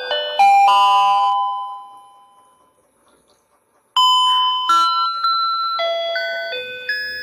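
Electronic fishing game toy playing its built-in tune: simple chime-like notes one at a time, ending in a ringing note that dies away. After a short pause, a new tune starts about four seconds in.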